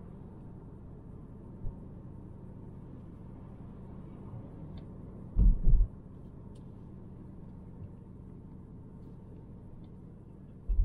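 Cabin sound of a 2018 Volvo V90 T5 Cross Country on the move: a steady low rumble from its 2.0-litre turbocharged four-cylinder and the road. A short cluster of heavy low thumps comes about halfway through, and another brief one right at the end.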